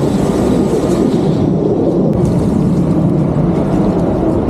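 Electric Husqvarna chainsaw cutting into a tree trunk: a loud, steady, rough noise. Its thin high motor whine fades out about a second and a half in while the rough noise goes on.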